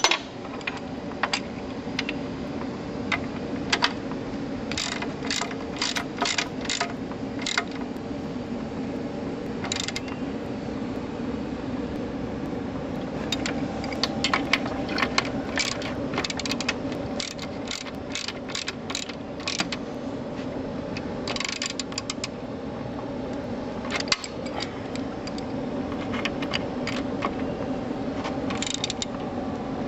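Socket ratchet wrenches clicking in quick runs of ratcheting strokes as bolts on a garden tractor's frame are turned, with a steady low hum underneath.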